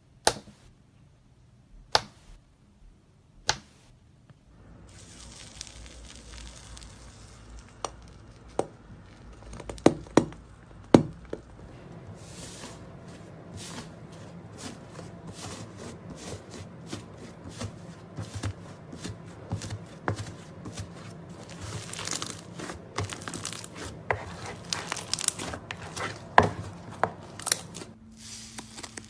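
Slime being worked by hand: a few sharp clicks, then from about five seconds a soft sticky crackle, with loud snaps around ten seconds. From about twelve seconds come dense, rapid crackles and pops as it is pressed and stretched.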